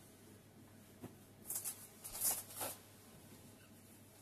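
Faint handling sounds over quiet room tone: a small click about a second in, then a few short rustles a little later.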